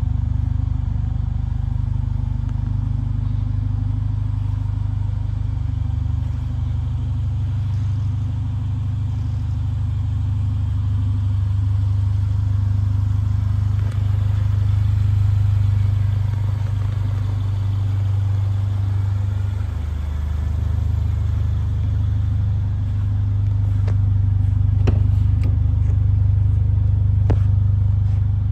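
Mercedes A45 AMG's turbocharged 2.0-litre four-cylinder engine idling steadily, a low even hum. A few light clicks near the end.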